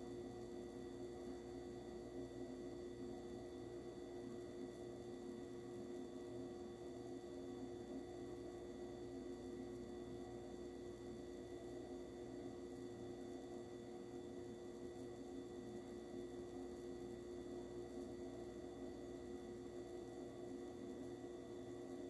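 Oven running with its door closed: a faint, steady hum made of a few constant tones over a light hiss, unchanging throughout.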